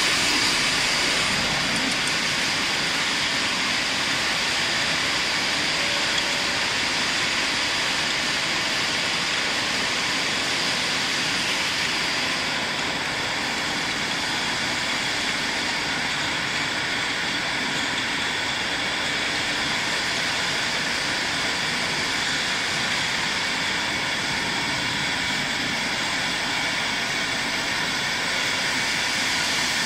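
Steady machine noise of a fruit-canning production line running: chain conveyors and their gear motors, with faint steady tones.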